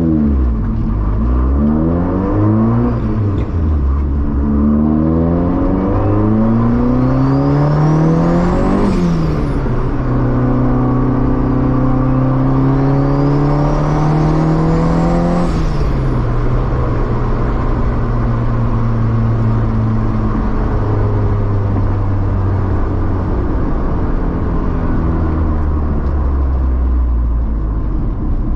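Honda Civic EF hatchback's engine heard from inside a cabin lined with sound-deadening mat, accelerating hard through two gears. The pitch climbs with a faint high whistle rising alongside, drops suddenly at each upshift, then settles into a steady cruise.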